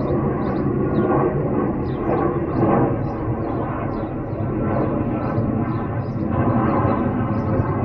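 Airbus Beluga XL's twin Rolls-Royce Trent 700 turbofans at take-off power as it climbs out overhead: steady, loud jet engine noise.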